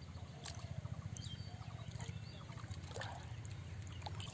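Light water sloshing and trickling as people wade chest-deep, over a steady low rumble, with a few faint clicks and brief high chirps.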